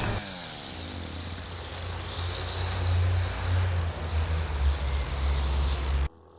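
Two-stroke brush cutter engine. Its pitch falls right at the start as the revs drop, then it runs on at a steady low note until it cuts off suddenly near the end.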